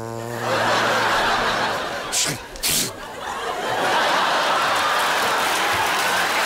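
Studio audience laughing, over a performer's mouth-made war sound effects: a low held hum at the start and two short explosive bursts about two seconds in. The laughter swells about four seconds in.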